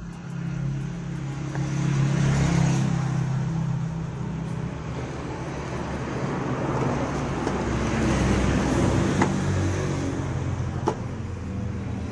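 A motor vehicle's engine running amid road traffic noise, growing louder about two seconds in, with two short sharp clicks near the end.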